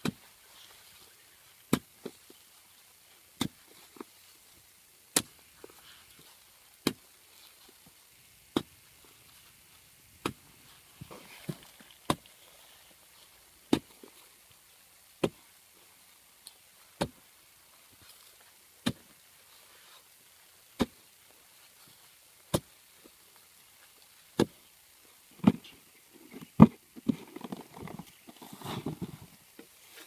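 A hand hoe's blade chopping into hard, dry soil in a steady rhythm, one blow about every second and a half to two seconds. Near the end the blows come louder and closer together, mixed with the scraping of loose earth being pulled out of the hole.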